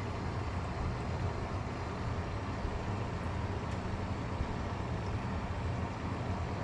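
Steady low rumble of background noise, even throughout, with no distinct events.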